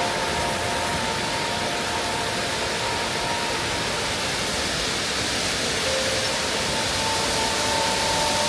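Waterfall pouring steadily into its plunge pool: a constant rush of water. A faint steady tone sits under it, fading midway and returning near the end.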